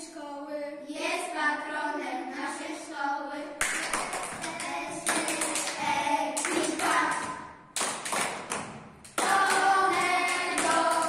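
A group of young children singing a song together, with hand claps joining in about four seconds in. The singing drops away briefly around eight seconds, then comes back louder.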